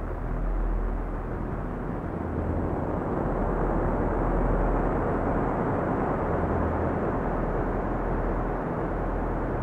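Ambient electronic music on a Moog synthesizer: a swelling, hiss-like wash of filtered noise over deep sustained bass notes that alternate between two low pitches.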